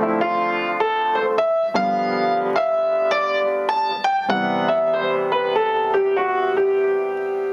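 Kawai piano playing a jazz ii–V–I in C major: left-hand chords D minor 7, G7, then C major 7, struck three times, under an improvised right-hand single-note line. The line runs on the straight C major scale over the first two chords and switches to the G major scale, with an F sharp, over the C major 7, giving a C Lydian sound.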